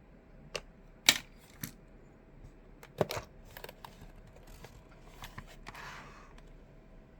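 Clicks of mechanical keyboard keys and the device's plastic case being handled, a dozen or so sharp clicks at irregular spacing, the loudest about a second in. A short scraping rustle comes about six seconds in.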